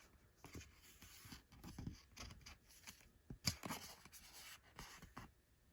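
Faint rustling and scraping of a paper book's pages and flaps being handled, with a few small clicks and a sharper tap about three and a half seconds in.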